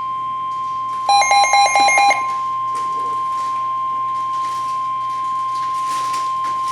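NOAA Weather Radio 1050 Hz warning alarm tone: one steady, loud tone announcing that a new warning is about to be read. About a second in, a run of about five short, higher beeps sounds over it for about a second.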